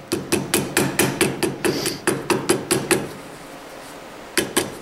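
Ball peen hammer tapping quickly and lightly on gasket paper laid over a metal intake manifold, each tap a sharp knock with a short metallic ring, several a second. The taps cut the paper along the manifold's edge to form a hand-made carburetor gasket. They stop about three seconds in and start again near the end.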